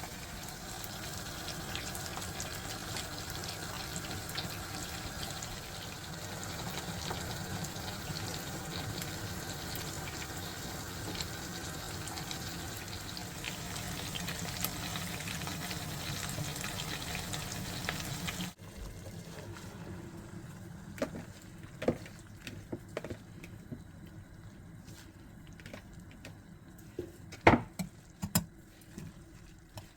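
Water running steadily for about eighteen seconds, then cutting off suddenly. After that it is quieter, with scattered clicks and knocks, the loudest near the end.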